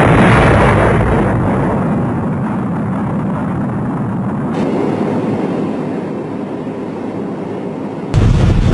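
A volcanic eruption's continuous deep rumbling noise, loudest at the start and slowly easing off. A louder low noise cuts in near the end.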